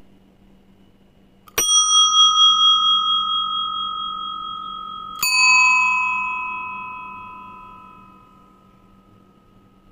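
A bell struck twice, about three and a half seconds apart, each strike ringing on and fading slowly over several seconds; the second strike adds a lower tone.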